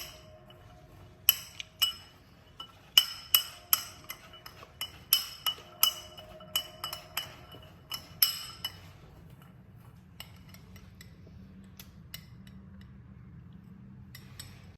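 Repeated sharp clinks of a utensil against glassware, each ringing briefly, coming quickly for several seconds and then thinning out to faint ticks.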